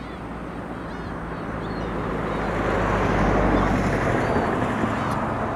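A passing vehicle: a rushing noise that swells to a peak about three seconds in and fades again, over a steady low engine hum. A few short bird chirps sound over it.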